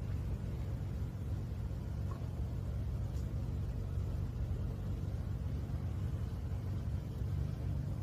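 Steady low outdoor background rumble, with no distinct event standing out.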